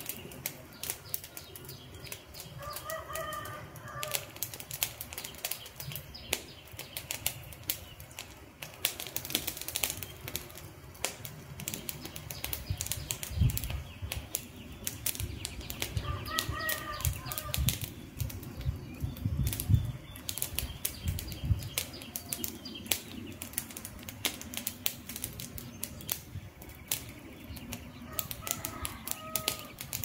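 Wood campfire burning, with dense snapping and popping crackles throughout and a low fluttering rumble from about 13 to 22 seconds in. A bird calls briefly three times in the background: a few seconds in, about halfway, and near the end.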